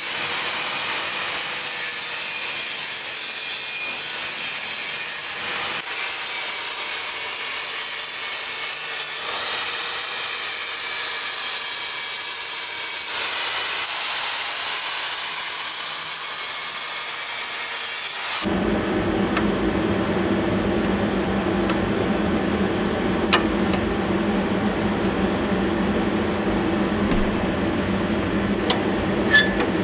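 Angle grinder grinding steel, a steady high whine with short breaks every few seconds. About two-thirds of the way through it gives way to a louder, lower steady motor hum with a couple of sharp clicks.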